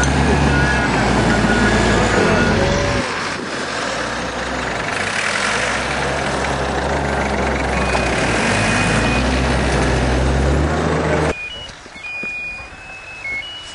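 Heavy machinery at a dump running loud: a bulldozer's engine drones and revs up and down a couple of times, with short beeps of a reversing alarm. The engine noise cuts off suddenly about eleven seconds in.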